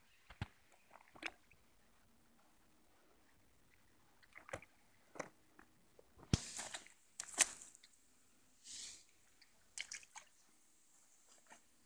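Hands and roach moving in a water-filled keepnet: a scattering of short splashes, drips and wet squelches, the loudest about six and seven seconds in.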